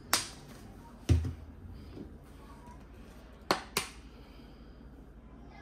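A few sharp clicks and a dull knock from seasoning containers being handled: one click just after the start, a knock with a low thud about a second in, and two quick clicks about three and a half seconds in.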